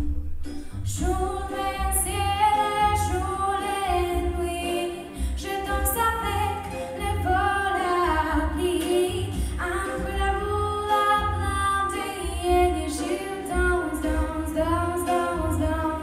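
A young girl singing a song solo into a handheld microphone, her voice amplified over a pulsing bass accompaniment.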